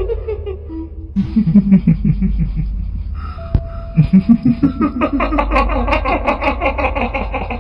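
Kuntilanak ghost-laugh effect: a woman's cackling 'hihihi' in quick pulses. A lower run comes about a second in, then a second run from about four seconds in climbs steadily to a high pitch, all over a steady low drone.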